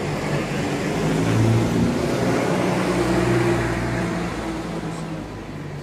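A motor vehicle's engine drones close by, with a low steady hum that swells about a second and a half in and fades away over the last couple of seconds, as a vehicle passing on the street would.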